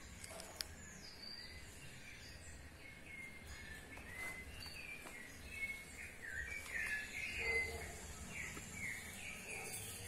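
Small birds chirping in a run of short, downward-sliding notes that come thicker and louder in the second half, over a steady low background hum. There is one sharp click about half a second in.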